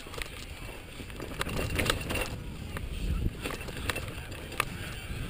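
Mountain bike riding down a rocky dirt trail, heard from a camera on the bike. There is a steady rumble of tyres and wind, with many sharp rattles and clacks from the bike jolting over rocks. The rumble grows louder about halfway through.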